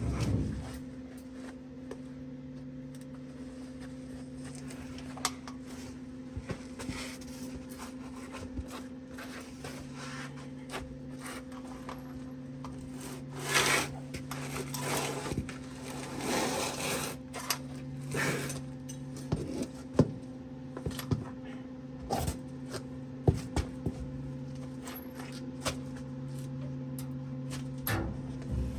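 Welder arc crackling in a few short bursts while welding on an exhaust tip, among scattered clicks and scraping, over a steady hum.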